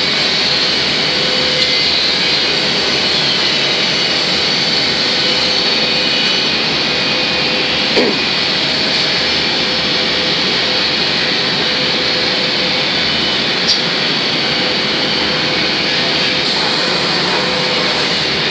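Automatic wood-door spray-painting machine running: a steady, loud rush of moving air, with a faint steady hum under it and a couple of brief clicks.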